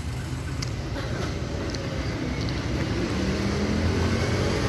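Road traffic: a motor vehicle's engine running as it passes on the road, with a steady low rumble growing gradually louder and a low engine hum joining about halfway through.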